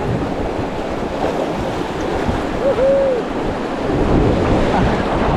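River water rushing around a raft, mixed with wind buffeting the microphone, as a steady loud noise. A short pitched call, under a second long and rising then falling, comes about halfway through.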